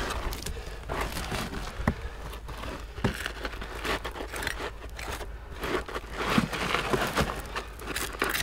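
Gloved hands scraping and raking through loose, gritty coal ash and cinders: a run of irregular crunching scrapes with a few sharper small clicks.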